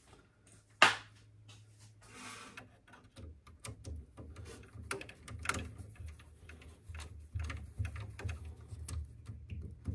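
Small clicks and taps of a screwdriver and plastic parts being handled at the print head of a Bambu Lab X1C 3D printer as it is put back together, over a low steady hum. One sharp click about a second in is the loudest sound.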